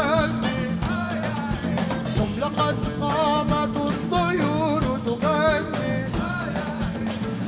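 Large Middle Eastern jazz ensemble playing live: drum kit and horns under a lead melody that wavers with strong vibrato and ornamented bends.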